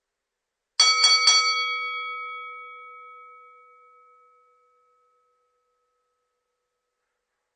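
Boxing ring bell struck three times in quick succession (ding-ding-ding) about a second in, then ringing on and fading away over a few seconds.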